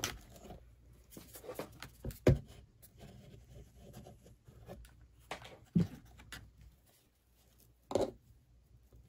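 Sparse handling sounds at a craft table: faint rustling with a few soft knocks and clicks, the loudest a little over two seconds in, as ribbon is pressed onto a cardboard sign and a hot glue gun is used and put down.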